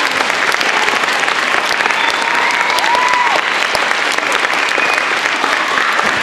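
An audience of schoolchildren applauding steadily, with a few high voices calling out over the clapping.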